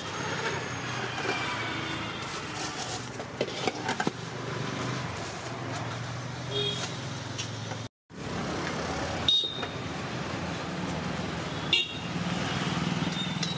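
Street traffic running steadily, with short car-horn toots, and sharp clinks of steel ladles against serving pots and plates.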